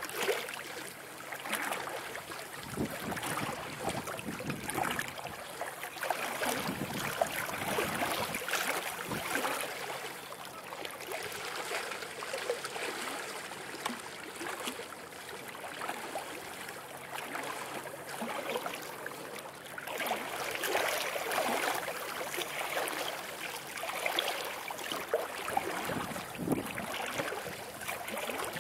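River water lapping and rippling at the shoreline, a wash that keeps rising and falling in loudness.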